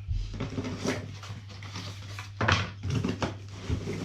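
Packaging and small items being handled while unboxing: rustling with a few sharp clacks and knocks, as of a tool set being taken out.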